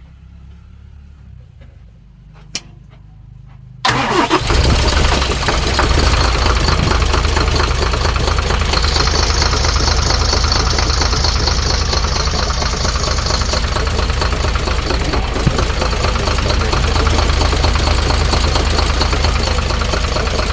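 Isuzu 6HK1 inline-six diesel engine catching about four seconds in and then running steadily and loudly, with a higher hiss joining for a few seconds in the middle. The engine is suspected of a blown head gasket that forces compression into the radiator.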